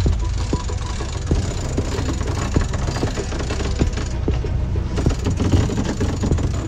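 Steady low rumble of wind on the microphone aboard a sailboat, with irregular knocks and rattles from the boat and its gear.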